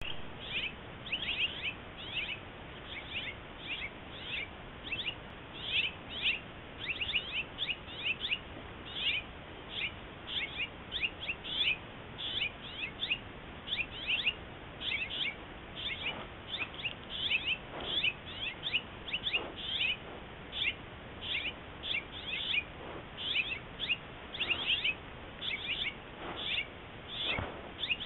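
Small songbirds chirping busily and without a break, several short calls a second, heard through a trail camera's microphone that leaves out the highest sounds. A few fainter, lower thuds come in over the second half.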